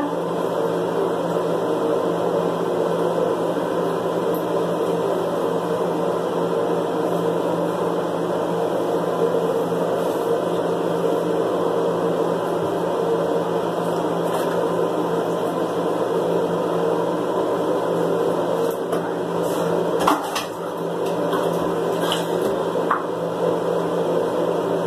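A steady mechanical hum, with a few faint knocks and clicks now and then.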